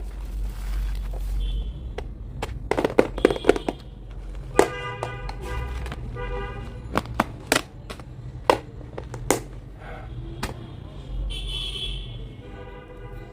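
Packaging being handled during an unboxing: a string of sharp clicks, taps and rustles over a low hum. A buzzy, horn-like pitched tone sounds in the middle and again near the end.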